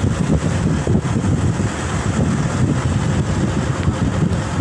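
Wind rushing and buffeting over the microphone held at the open window of a moving car, over the car's road noise.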